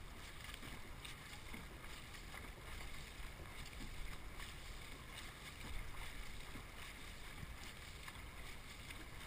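Faint water noise from a dragon boat being paddled: paddle blades working the water and the hull moving through it, with light wind on the microphone.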